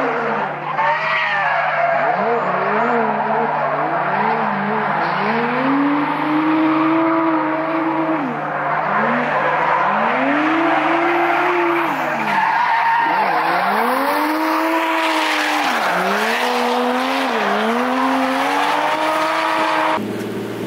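Toyota JZX100 drift car's engine revving up and dropping back again and again as it drifts around a corner, with tyres squealing and skidding on the asphalt. The engine sound cuts off abruptly near the end.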